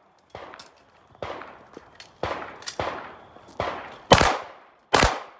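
Pistol shots fired in a string, about seven sharp reports at uneven intervals, the last two the loudest.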